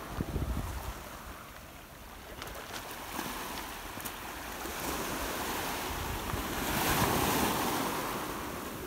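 Small waves washing onto a pebble shore, the wash swelling about two-thirds of the way through and then easing off. Wind buffets the microphone briefly at the start.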